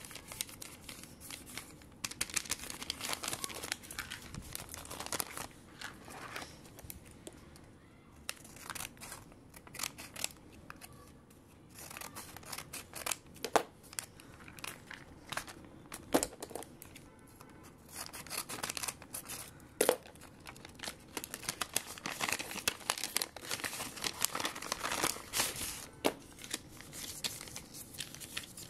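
Lined notebook paper being handled, rustling and crinkling, with scattered sharp crackles and snaps.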